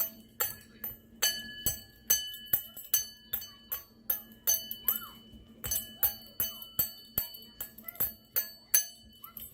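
Gong of a fire alarm bell struck over and over with a small metal key, about two or three irregular taps a second with a couple of brief pauses, each tap leaving a clear metallic ring.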